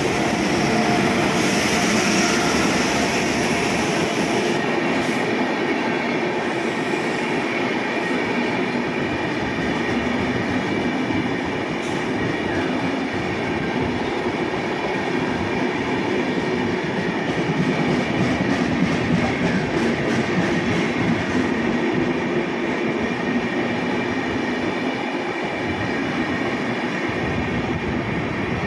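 Indian Railways electric locomotive and AC double-decker passenger coaches rolling past: a steady rumble and rattle of wheels on rails, with a brighter hiss for the first few seconds as the locomotive goes by and scattered clicks over rail joints after that.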